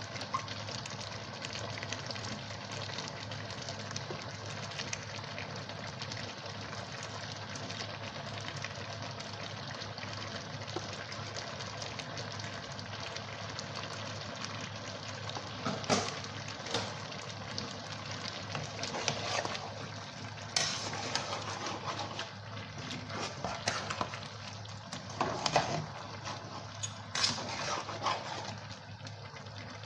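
A pot of soup cooking on the stove with a steady hiss over a low hum. From about halfway through, a spoon stirs the aluminium pot in short scraping, clacking spells.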